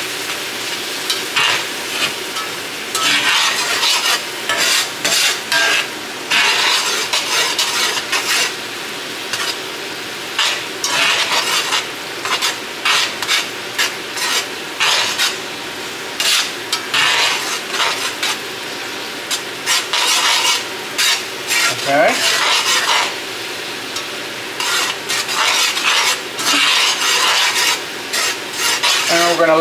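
Mushrooms sizzling in a skillet with a little water cooking down, while a slotted metal spatula scrapes and stirs them round the pan in frequent, uneven strokes over a steady hiss.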